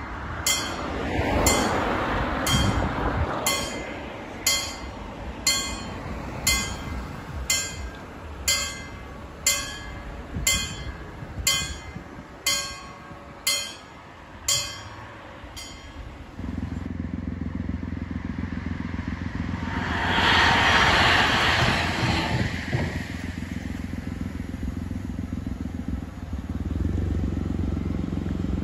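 Level-crossing bells ringing about once a second while the barriers lower, stopping about fifteen seconds in. A steady low hum then sets in, and a light-rail train passes with a rush of wheel noise around twenty seconds in.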